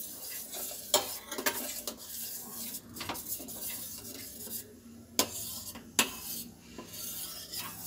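Metal spoon stirring boiling milk in a stainless-steel pot, knocking against the side of the pot every second or two with sharp metallic clinks.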